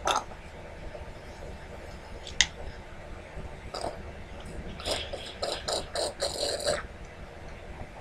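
Sucking and slurping through a plastic drinking straw stuck into a plastic water bottle: one sharp click about two and a half seconds in, then a quick run of short slurps in the second half.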